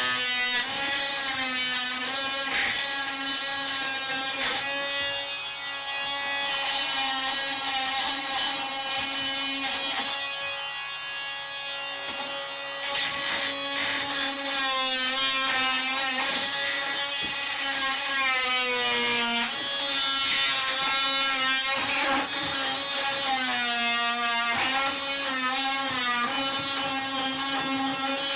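Electric power tool running steadily, its motor pitch sagging and recovering several times as it is pressed into the work.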